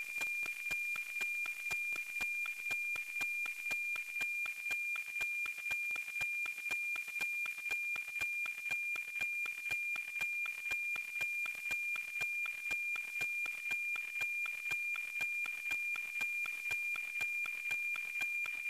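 NOAA-19 weather satellite APT downlink as heard from an RTL-SDR receiver: a steady high 2.4 kHz whistle with a regular tick-tock pulsing about twice a second, the image scan-line sync. The signal is clear and strong.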